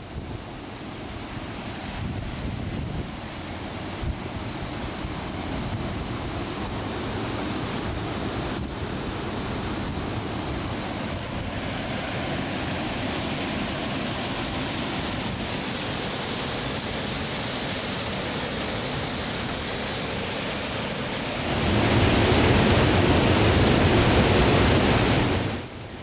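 Creek water pouring over a small concrete dam spillway, a steady rushing that grows noticeably louder for a few seconds near the end.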